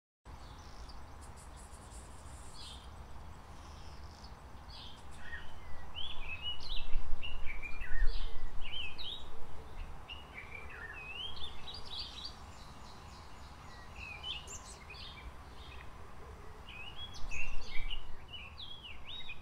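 Outdoor ambience that cuts in just after a moment of silence: many small birds chirping and calling in short, gliding notes over a steady low rumble.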